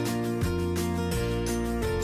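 Instrumental background music, with sustained notes over a bass line that changes note every half second or so.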